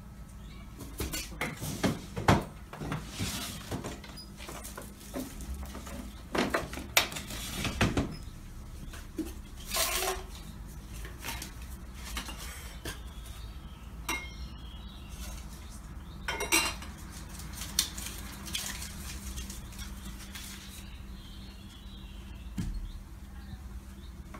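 Someone rummaging through a sideboard drawer and the containers on top of it: metal and glass items clinking and rattling in bursts, busiest in the first ten seconds, with a few more clinks later on.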